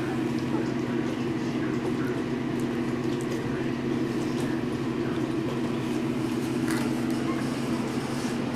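A steady low machine hum at an even level, with a few faint small clicks over it.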